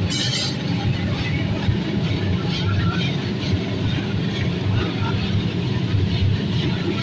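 Brick forge furnace with forced-air blower running, a steady low rumble. A brief high hiss comes at the very start.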